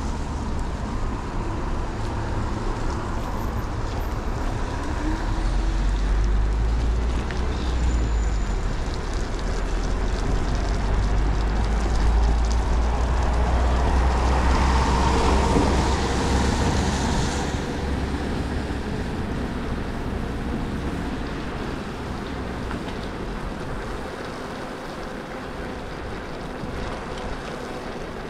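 Wind buffeting the microphone and tyres hissing on wet pavement during a ride on a Kaabo Mantis King GT electric scooter, with no motor sound standing out. The deep rumble swells in the middle and eases toward the end.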